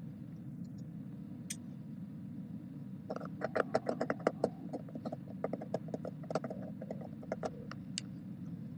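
A quick, irregular run of clicks and taps on a laptop, like typing, starting about three seconds in and stopping near the end, over a steady low room hum.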